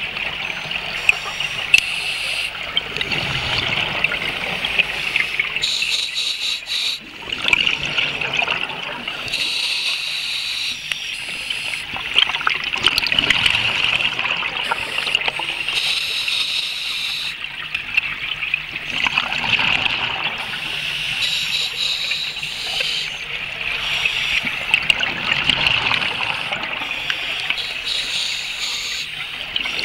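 Underwater sound of scuba divers breathing through their regulators: bursts of exhaled bubbles every few seconds over a steady crackling hiss.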